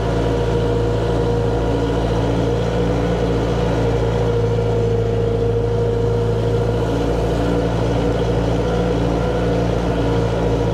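Arbos 3055 tractor engine running steadily at constant speed as the tractor drives across a tilled field.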